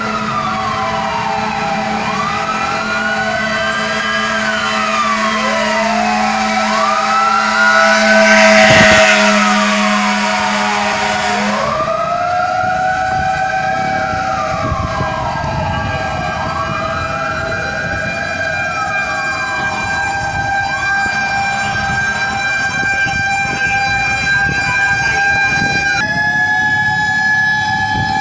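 Siren wails rising and falling over and over, several overlapping, over street noise. A rushing noise swells about nine seconds in.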